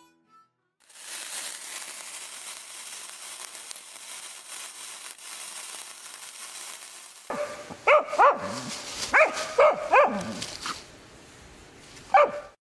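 A lit fuse hisses for about six seconds. Then a dog barks several times in quick succession, with one last bark near the end.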